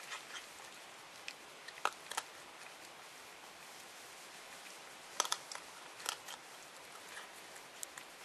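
Masked palm civet crunching dry dog food: scattered sharp crunches, several close together about five seconds in.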